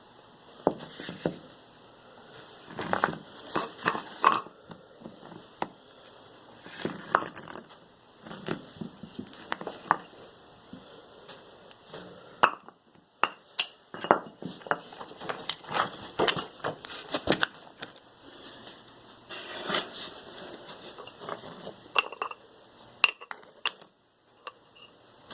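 Irregular clatter of hard objects being handled: sharp clicks and clinks mixed with short scraping strokes, stopping briefly near the end.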